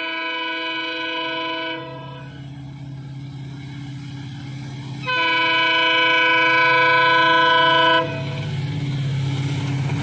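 Diesel locomotive's air horn sounding two long chords of several tones. The first ends about two seconds in; the second, louder, runs from about five to eight seconds in. Both sound over the locomotive's low engine drone, which grows louder near the end as the train approaches.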